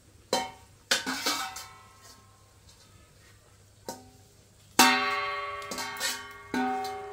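Metal clanks that ring on after each strike: a stainless steel bowl knocking against an iron wok as greens are tipped in. Several knocks, the loudest a little under five seconds in.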